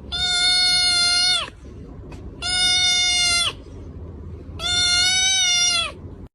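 An animal calling three times, each call long, drawn out and held at one pitch, with a steady low hum underneath.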